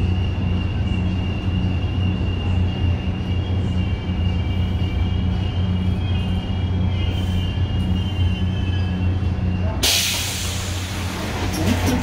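Inside a Metra Amerail commuter coach: the train rolls to a stop with a steady low rumble and a faint high-pitched squeal. About ten seconds in, a sudden loud hiss of air comes as the pneumatic side doors open.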